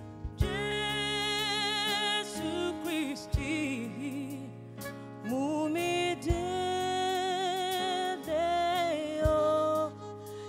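Gospel music: singing in long, wavering held notes and gliding phrases over instrumental backing.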